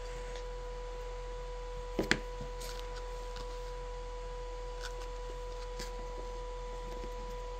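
A steady electrical tone with a higher overtone, typical of the battery inverter that powers an EL-wire light-up mask. A sharp click comes about two seconds in, and a few faint clicks follow later.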